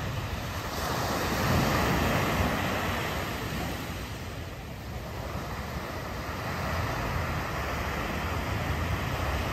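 Small waves breaking and washing up a sandy beach, with wind on the microphone. The wash swells from about a second in, eases around the middle and builds again near the end.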